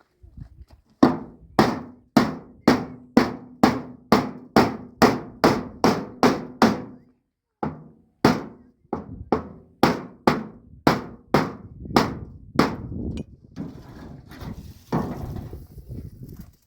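Steady hammer blows, about two a second, with a short break about seven seconds in. The blows stop after about thirteen seconds and fainter knocks and scraping follow.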